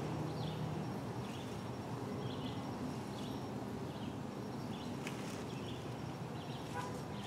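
Quiet woodland ambience: faint short chirps about once a second, with a couple of light clicks late on from handling the wooden pole and fishing line.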